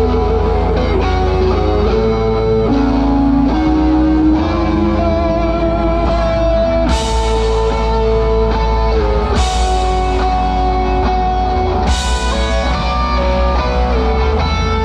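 Live rock band playing through a PA system: electric guitar lines over bass and drums, with three cymbal crashes in the second half.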